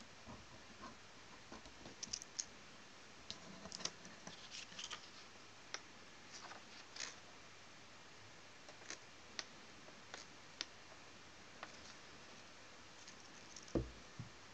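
Faint, irregular clicks and light scratches of a pen working on paper and being handled, with one louder low thump near the end.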